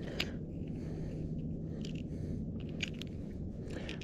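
Hands unhooking a jig from the mouth of a small yellow bass: a few scattered soft clicks and crackles of handling over a steady low rumble.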